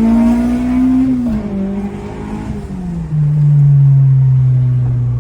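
K24-swapped Acura RSX's four-cylinder engine accelerating. Its pitch climbs, falls as a gear is changed about a second in, and falls again near three seconds in, then holds steady and louder under load. The new clutch is taking the gears.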